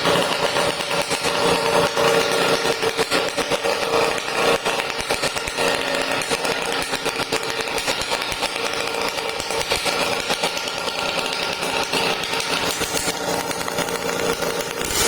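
Drag motorcycle's engine running continuously at high revs, a fast, rasping buzz that rises and falls slightly without ever dropping to idle.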